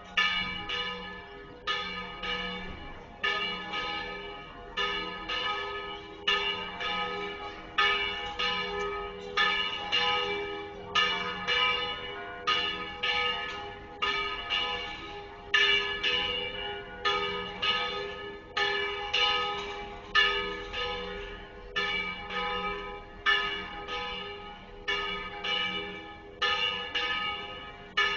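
Tower bells of Jaca's Church of Santiago ringing a steady peal: a long, even run of strokes, somewhat more than one a second, each ringing on into the next.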